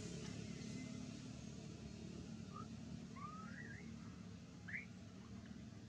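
Faint low steady hum, like a distant motor, with a few short rising squeaky chirps from about halfway in.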